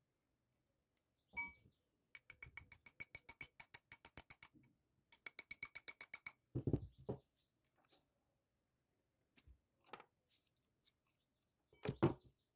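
Rapid light hammer taps on a nail used as a punch against a small steel door hinge's knuckle, the metal ringing with each strike. The taps come in two runs of about eight a second, followed by a few heavier knocks, scattered clicks and a loud metallic clank near the end.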